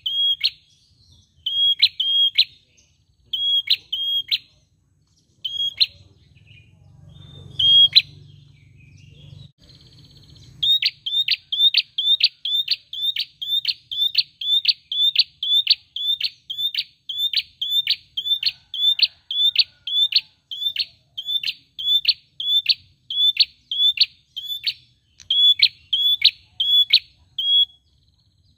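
A caged tailorbird (prenjak) calling loudly with short, sharp, high notes. It gives a few spaced calls at first, then about ten seconds in breaks into a long, even run of about two notes a second.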